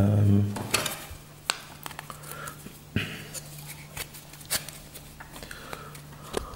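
A short hummed voice at the very start, then scattered light clicks and taps from a canvas watch strap and a plastic ruler being handled, over a faint steady low hum.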